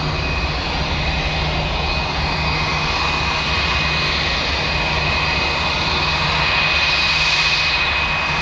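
Airbus A320-232's IAE V2500 turbofan engines running at taxi power: a steady jet rumble with a constant high whine on one pitch.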